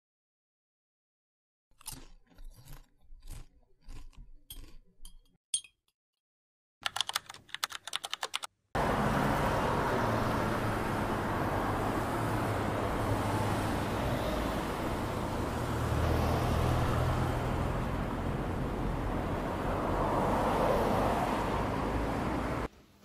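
Irregular sharp clicks and crunches for several seconds, then steady road and engine noise heard from inside a car cruising on a motorway, a low even hum under tyre noise, which cuts off suddenly near the end.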